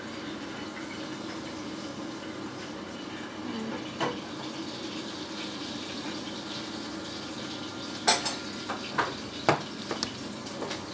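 Sharp clinks and knocks of kitchenware being handled. There is a single tap about four seconds in, then a quick run of clinks near the end, over a steady low hum.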